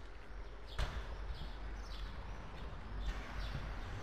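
Ride noise of a bicycle rolling over stone paving, a steady low rumble, with one sharp knock about a second in. Short high chirps repeat about once a second.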